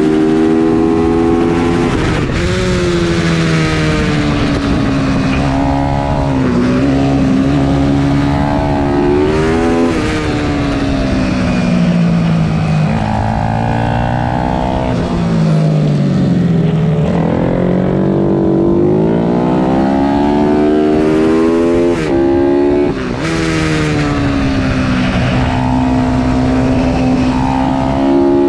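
Pit bike's single-cylinder four-stroke engine heard from onboard at racing speed, revving up in repeated climbs and dropping back between them, with quick breaks in the pitch as gears change. Wind rush runs under it.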